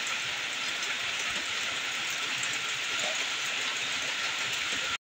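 Steady rain falling on puddled ground and leaves, an even hiss, which cuts off abruptly at the end.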